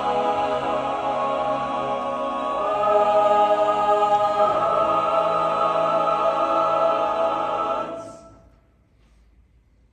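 Mixed high-school chamber choir singing held chords that step up in pitch twice and swell louder, then release together about eight seconds in and die away to near silence.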